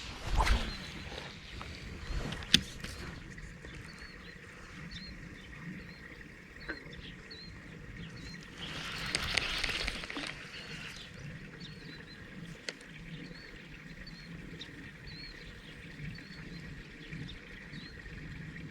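Quiet outdoor ambience with a small bird chirping, one short call repeated about once a second, a few sharp clicks, and a brief rush of noise about nine seconds in.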